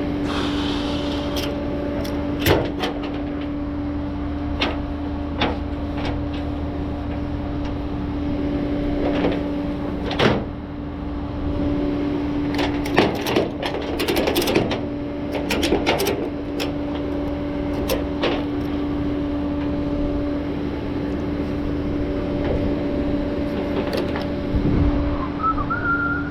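Inside a vehicle cab on the move: a steady running drone with a constant hum, and scattered clicks and rattles.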